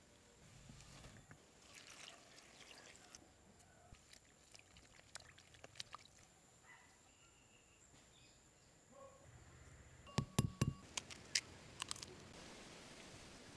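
Faint soft tearing and rustling of fresh mushrooms being pulled apart and handled in a ceramic bowl. About ten seconds in, a quick run of sharp cracks and taps as an egg is cracked on the bowl, then the egg slides out of its shell into the bowl.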